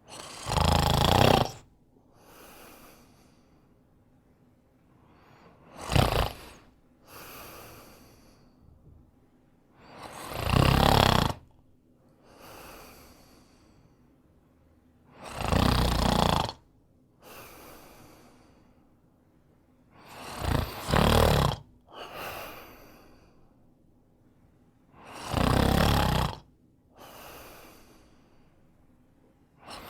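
A man snoring in a steady rhythm: six loud snores about five seconds apart, each followed by a softer breath.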